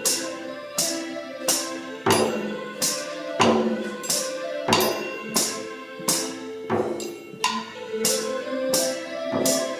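Instrumental ensemble music: held pitched notes under bright, jingling percussion strikes that come regularly, about three every two seconds.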